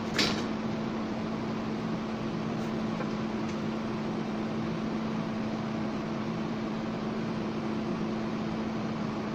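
TIG welding on stainless steel: a steady hiss with a constant low hum from the arc and welding set, with one sharp click just after the start.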